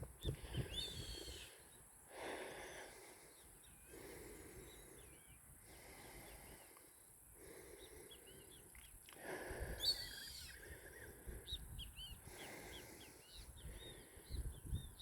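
Small birds chirping and calling faintly, with many short curling notes scattered throughout. Several soft rushes of noise about a second long come and go underneath.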